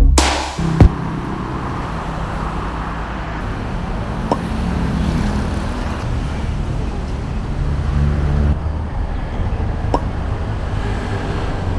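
Electronic background music ends about a second in, leaving a steady low outdoor background rumble with two faint clicks.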